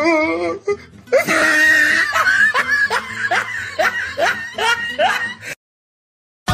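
A person laughing loudly in a run of short rising 'ha' bursts, about two to three a second, which cuts off abruptly into dead silence about a second before the end.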